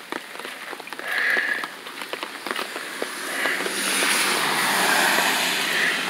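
Rain falling on wet ground and puddles, with scattered close drop ticks. A rushing noise swells for about two seconds past the middle and then fades.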